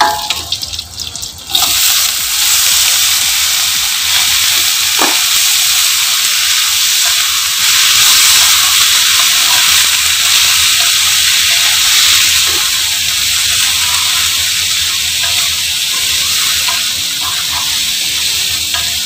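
Diced vegetables (potatoes, carrots, greens) hitting hot oil in a wok, setting off a loud, steady sizzle about a second and a half in, with a spatula stirring through them as they stir-fry.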